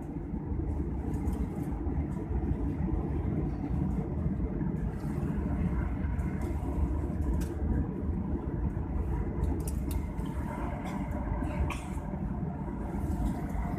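Steady low rumble and hum of an airliner cabin after landing, from the engines and air system, with a few faint clicks.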